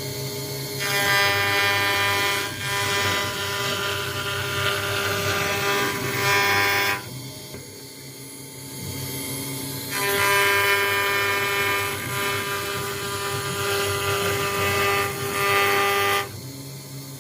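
CNC router spindle running with a steady whine while the engraving bit cuts acrylic sheet. The cutting noise swells in two long stretches of about six seconds each, dropping back to the spindle's whine between them.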